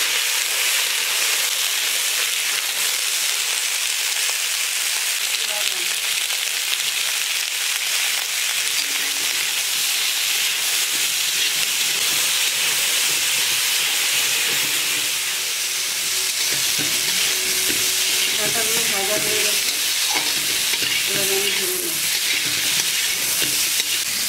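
Malabar spinach (pui) stalks sizzling in hot oil in a pan, a steady loud hiss of frying.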